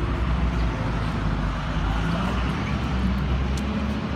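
A motor vehicle's engine running steadily close by, a low, even hum with no revving.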